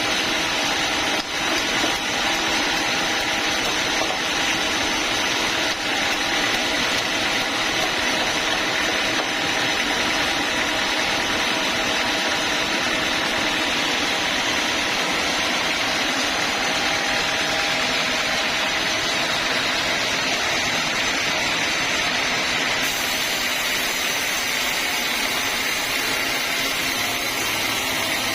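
Homemade band sawmill running steadily, a continuous machine noise.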